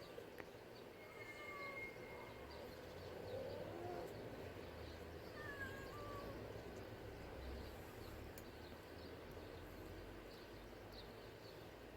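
Faint outdoor background with a couple of faint cat meows, one rising about four seconds in, and a few short scattered bird-like chirps.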